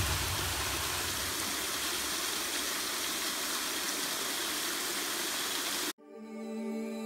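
Waterfall rushing steadily over rock. About six seconds in it cuts off abruptly, and soft music with held notes begins.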